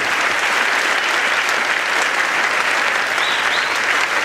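A large lecture-hall audience applauding steadily as a speaker is welcomed on stage.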